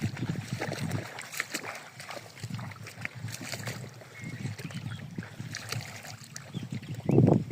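Water sloshing and lapping, with scattered light knocks and a louder thump about 7 seconds in.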